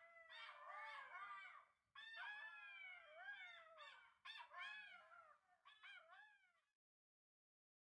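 Several animals calling at once in overlapping, wavering, mostly falling howls and yelps, like a dog-like chorus; it breaks off suddenly about a second before the end.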